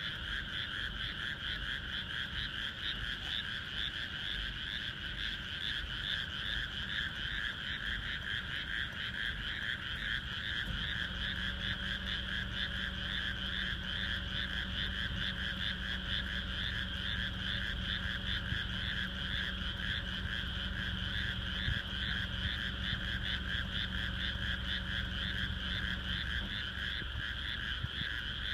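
A dense chorus of frogs calling together, a steady fast-pulsing trill that does not let up. A low steady hum joins about eleven seconds in and stops a couple of seconds before the end.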